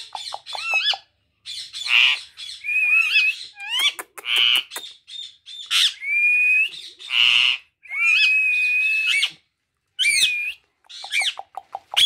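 Indian ringneck parakeets calling: harsh squawks alternate with whistles that rise and fall, two of them held steady for about a second. Quick runs of short chattering notes come near the start and again near the end.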